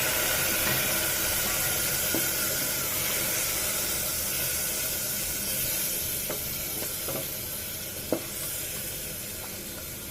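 Washed mutton pieces sizzling in hot oil in a pressure cooker as they are stirred and sautéed. The hiss slowly dies down, with a few sharp clicks of the spoon against the pot.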